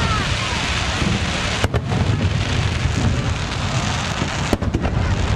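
Aerial fireworks crackling densely, a steady rain-like hiss of tiny pops, with a faint whistle at the start and a few sharper bangs, one about a second and a half in and one near the end.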